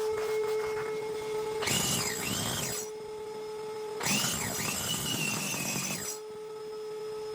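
Shop vacuum motor running with a steady hum. Twice the hum gives way to a louder rushing whoosh with a wavering whistle as the nozzle sucks up grit and debris from a crack in the tennis court.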